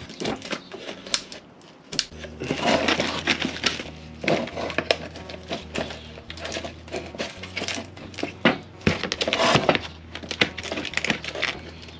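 Cured fibreglass part being prised out of a 3D-printed plastic mould with wedges: repeated sharp cracks and snaps at irregular intervals as the part and mould separate and the mould gives way.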